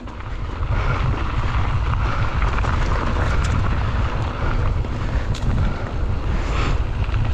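Wind buffeting the microphone of a camera on a moving mountain bike, over a steady low rumble of riding on the trail, with a few sharp clicks and rattles.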